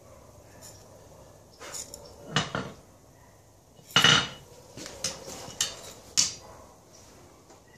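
About seven irregular clanks of steel on steel at a blacksmith's anvil, from the forging hammer, tongs and a blade forged from chainsaw chain, as the last blows are struck and the tools are handled. The loudest clank, about four seconds in, rings briefly.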